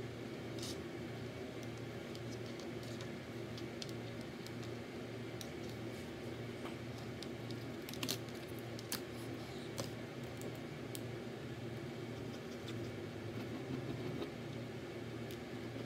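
Occasional light clicks and taps of wooden craft sticks being set down and arranged on a tabletop, with a few sharper clicks about halfway through, over a steady low background hum.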